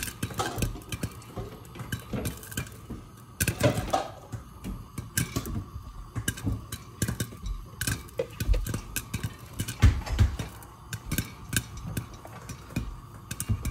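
Popcorn kernels popping inside a lidded stainless steel saucepan on a gas burner: irregular sharp pops, several a second, with a louder pop about ten seconds in.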